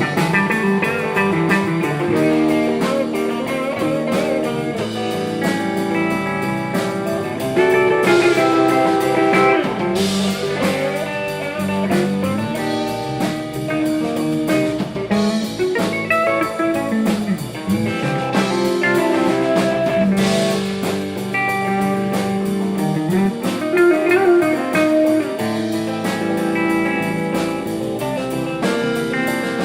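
Blues-style music led by guitar, with drums keeping a steady beat.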